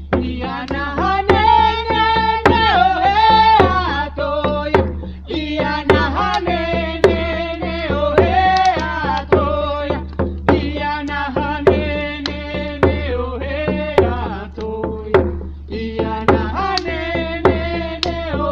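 A chant sung to a steady drum beat, the melody carried continuously with sharp drum strikes at regular intervals.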